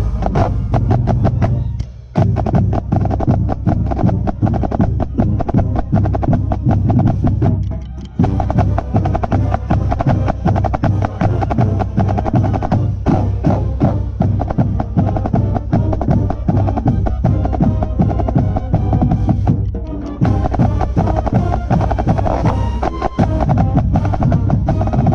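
Marching snare drum played close to the microphone: fast, crisp strokes and rolls with brief breaks, over a marching drumline and band playing loudly.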